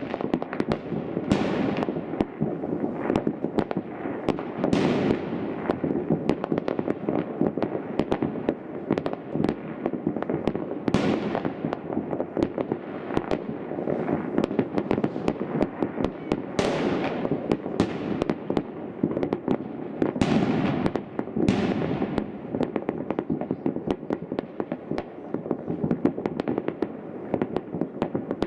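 Fireworks display: a continuous stream of crackling and popping from aerial shell bursts, with a bigger bang every few seconds.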